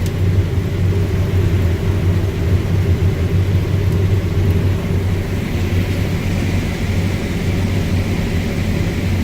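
Claas Lexion 750TT combine harvester running steadily: a loud, even low drone, with a faint higher whine coming up about five seconds in.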